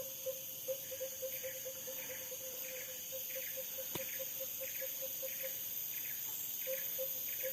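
Steady high-pitched drone of forest insects, over a low short note repeated about two to three times a second that breaks off briefly near the end, with a single click about halfway through.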